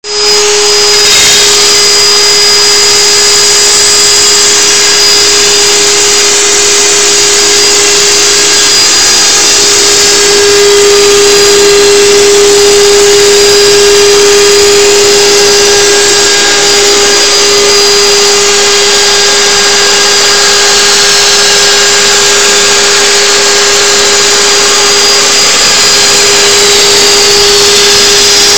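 A table-mounted router and a shop vacuum running together, a loud steady whine, while a cedar shaft is fed through the router's dowel-making jig and rounded into an arrow shaft.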